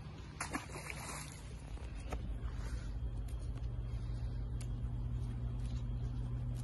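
Splashing as a crab trap hits the water in the first second or so, then a steady low hum that grows a little louder.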